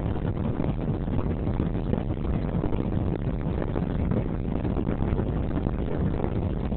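Car driving on a rural road: steady engine and tyre noise heard from inside the cabin, a low rumble that stays even throughout.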